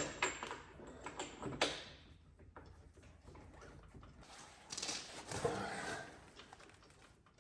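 Workshop handling noises while working on an engine: a few sharp knocks and clicks in the first two seconds, then a rustling scrape lasting about a second and a half, around five seconds in.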